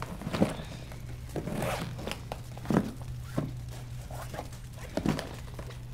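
Zipper on a red hard-shell suitcase being pulled open in one long zip, with a few short knocks as the case is handled and its lid lifted.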